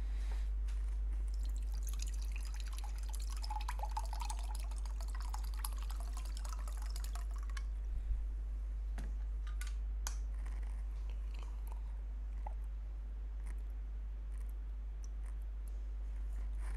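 Water being poured into a glass for about six seconds, then a single knock about eight seconds in, over a steady low hum.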